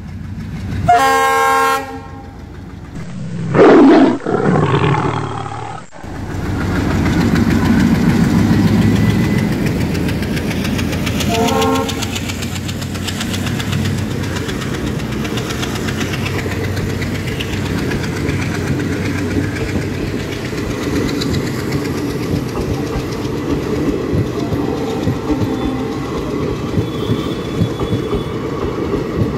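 Diesel locomotive horn blowing about a second in, then a louder blast that falls in pitch as the engine reaches the crossing. After that the passenger coaches pass close by in a loud, steady rumble, with the clickety-clack of wheels over the rail joints and a brief horn toot about twelve seconds in.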